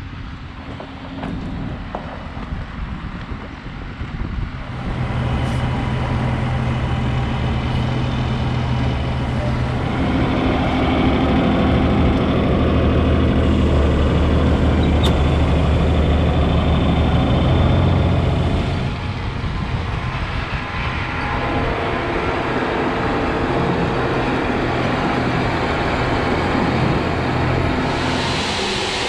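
Large farm tractor's diesel engine running under changing load, getting louder about five seconds in and again around ten seconds, then easing off near nineteen seconds.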